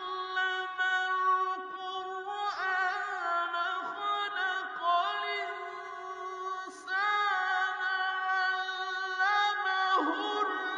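Background music: a sung vocal line of long held notes that slide from one pitch to the next.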